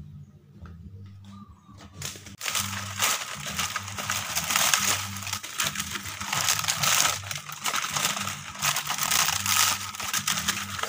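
Dry leaf fronds rustling and crackling as they are handled and piled against a metal drum, starting about two seconds in and continuing thickly to the end.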